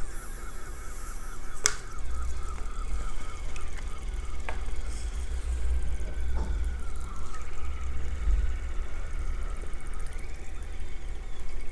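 A spoon cutting into soft food in a glass bowl, with one sharp clink of the spoon on the glass a couple of seconds in and a few lighter taps later, over a steady low rumble.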